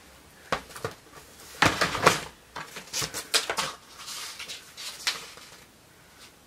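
Clatter of household items being handled and set down: a run of sharp clicks and knocks, loudest a couple of seconds in, with a light rustle of packaging around four seconds in.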